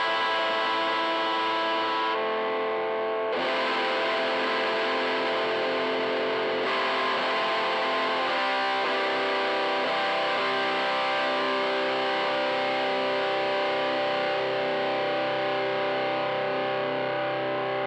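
Michael Kelly Patriot Custom electric guitar played through a Joyo crunch distortion pedal into a 5E3 tweed Deluxe-style tube amp: overdriven chords, each left to ring for a few seconds before the next.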